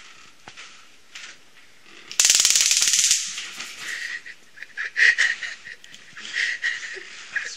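Handheld stun gun crackling in a loud burst of very rapid electric snapping, about two seconds in and lasting about a second, followed by a man laughing.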